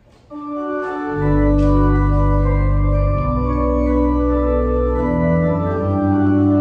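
Church organ starting to play a hymn in held chords. The chords come in about a third of a second in, and deep pedal bass notes join about a second in. The chord changes every couple of seconds.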